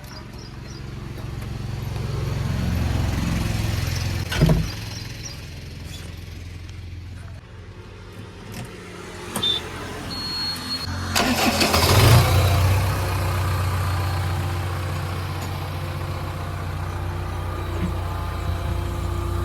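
Diesel engine of a JCB 3DX backhoe loader running, its revs rising about two to four seconds in, with a sharp knock at about four and a half seconds. About eleven seconds in a loud rush of noise comes, and the engine then settles into a steady run.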